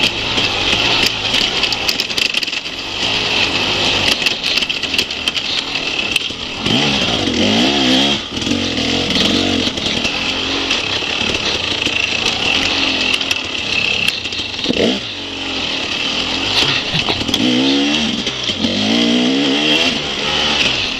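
Enduro motorcycle engine heard from onboard, revving up and down again and again as the rider accelerates and backs off, its pitch rising and falling several times over a steady rushing noise.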